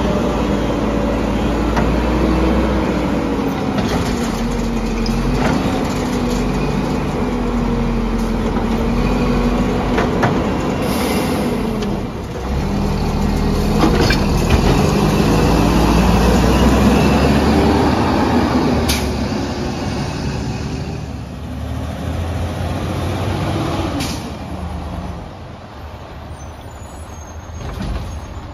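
Garbage truck at work: the engine revs rise and fall, broken by several sharp knocks and a short hiss about eleven seconds in. The sound grows quieter near the end.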